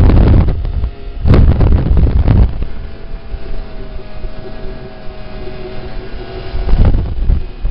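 Wind buffeting the microphone in heavy, rumbling gusts, with a lull in the middle where a faint steady hum can be heard.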